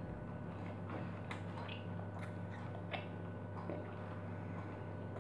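Faint chewing and small wet mouth clicks of someone eating a raw lemon piece, a few clicks spaced about a second apart, over a steady low hum.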